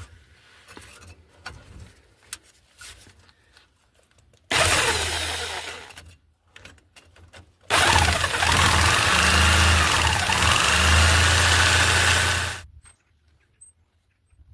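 Electric jigsaw cutting through the rusty steel exhaust pipe at the flexible joint: a few light clicks, then a short burst of cutting about four seconds in, and a longer run of about five seconds that stops near the end.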